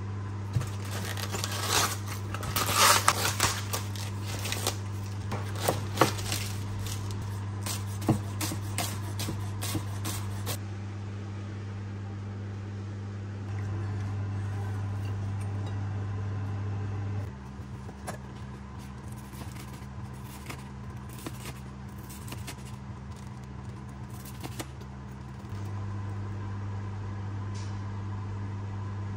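Kitchen knife shredding cabbage on a wooden cutting board: a quick, irregular run of cuts and scrapes that stops about ten seconds in. After that only occasional light clicks are heard over a steady low hum.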